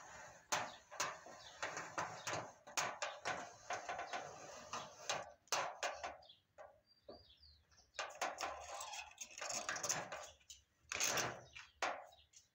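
Hands handling a cardboard cut-out and pressing strips of white tape onto its edges: irregular taps, crinkles and rustles, with quieter pauses between bursts of handling.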